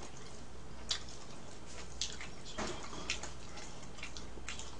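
Eating sounds at the table: a few short, scattered wet clicks and smacks of chewing and chopsticks in the food, over a low steady background hum.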